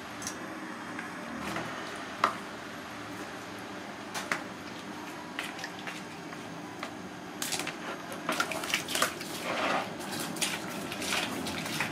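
Water splashing and sloshing in a plastic basin as a dead snake is coiled into it and handled, with scattered clicks and knocks, one sharp knock about two seconds in. The splashing grows busier in the second half.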